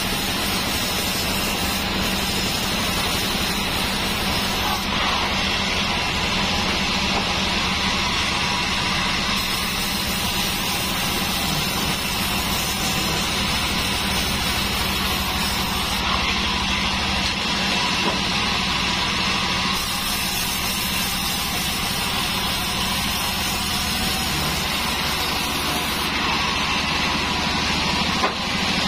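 Band saw running steadily while a thick wood slab is pushed through its blade and sawn.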